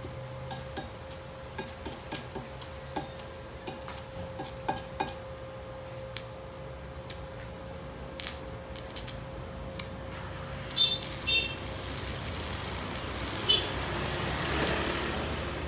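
Light metallic clicks and clinks. Then, about eleven seconds in, an electric arc-welding arc starts and crackles with a rising hiss. A faint steady hum runs underneath.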